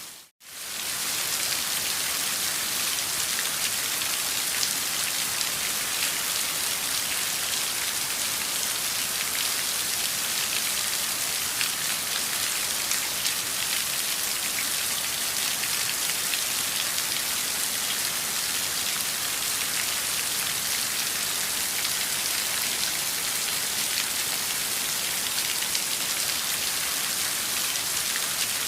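Steady downpour: a dense, even hiss of rain with many individual drops pattering on a surface. It drops out for a split second at the very start, then carries on unchanged.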